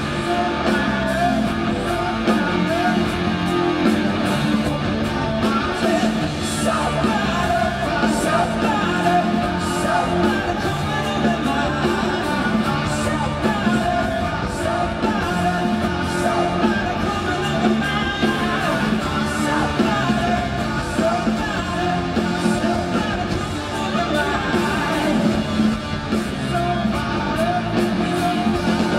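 Live hard rock band playing a song: electric guitar, drum kit and bass with male lead vocals, heard through the stadium PA from the audience.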